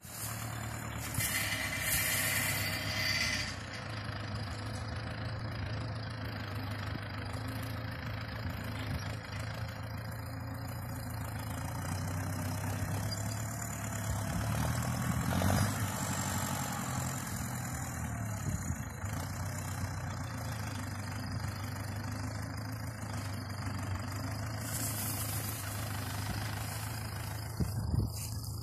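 Tractor engine idling steadily, briefly rising in revs about halfway through. A short burst of hiss comes near the start and again near the end.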